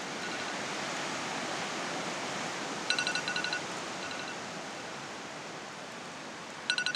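Steady rushing wind noise on the microphone in gusty weather around a burning twig stove. A short, rapid run of high chirps, about six notes in half a second, comes twice about four seconds apart, each time answered by a fainter, shorter run.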